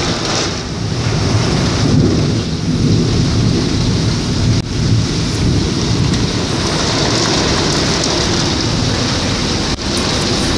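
Heavy thunderstorm rain pouring steadily, with a deep low rumble underneath that is strongest in the first half.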